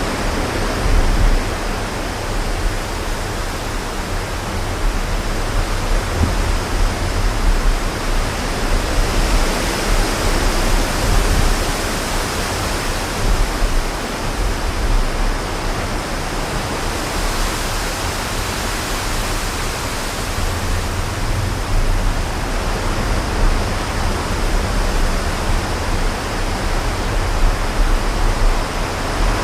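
Strong wind blowing, a steady rushing hiss that swells and eases, with a heavy low rumble of gusts buffeting the microphone.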